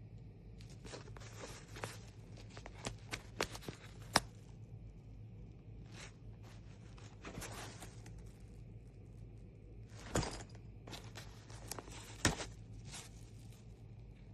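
Fabric backpack being handled: irregular rustling and scraping, with clicks and a few sharper knocks about four, ten and twelve seconds in.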